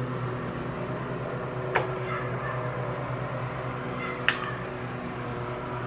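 Small metal and plastic clicks as a carburetor and its throttle cable are handled and fitted onto a backpack blower's engine, two sharp ones standing out, over a steady background hum.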